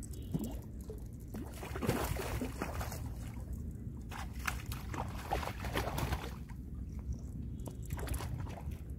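Water splashing and sloshing at the water's edge in irregular bouts, over a steady low rumble of wind on the microphone.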